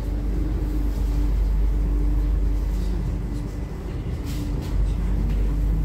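Delhi Metro train heard from inside the carriage as it arrives at a station platform: a steady low rumble with a constant motor hum, briefly quieter about three and a half seconds in, and a few faint clicks near the end.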